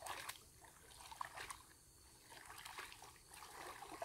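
Faint trickling of shallow water with a few irregular small splashes.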